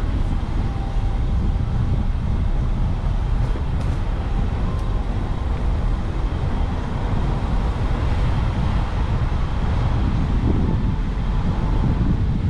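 Car driving along a narrow lane: a steady low rumble of engine and tyre noise.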